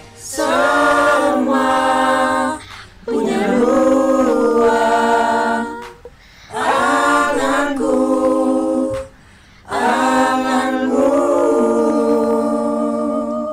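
A group of voices singing long held chords without instruments, in four phrases separated by short breaks.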